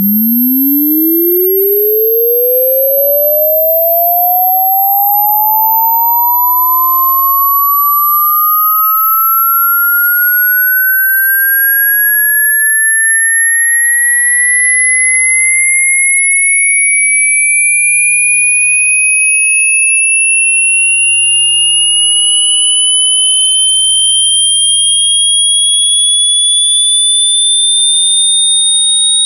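Loud electronic sine-tone sweep: a single pure tone glides steadily upward from a low hum to a piercing high whistle, climbing fast at first and then more slowly. A second very high, thin tone drifts slowly downward above it.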